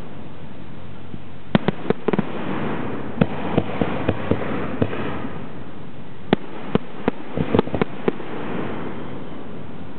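Aerial firework shells bursting in an irregular run of sharp bangs, several coming close together about six to eight seconds in, over a steady background hiss.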